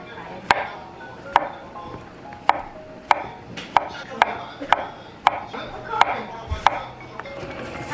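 Chef's knife slicing button mushrooms on a wooden cutting board, the blade knocking on the board about a dozen times at an uneven pace of roughly one knock a second.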